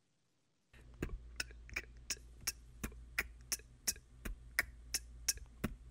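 Quiet beatbox-style rhythm of short kick, snare and hi-hat hits, evenly spaced about three a second, starting about a second in over a faint low hum.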